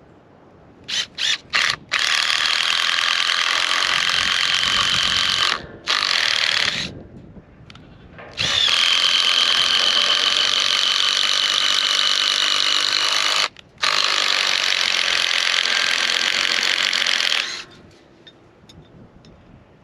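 Power drill boring holes into a wooden post with a 3/8-inch wood bit: a few quick trigger blips, then long runs of steady whine broken by brief stops.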